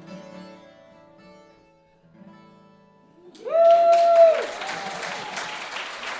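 Acoustic guitar's final chord ringing out and fading, with a soft last strum about two seconds in. A little after three seconds a loud held cheer breaks out and audience applause starts and carries on.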